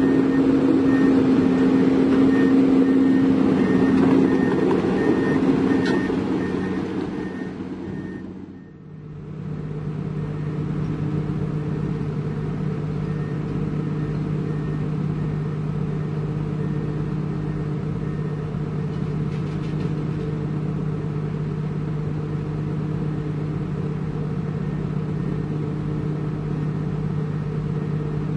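Heavy construction vehicle's diesel engine running loudly while a reversing alarm beeps steadily at an even pace; about eight seconds in the sound dips away and is replaced by a steady, lower engine drone.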